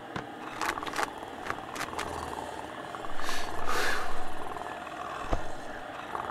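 Cat purring, a steady low rattle that swells louder about three seconds in, with a few soft clicks and rustles in the first two seconds.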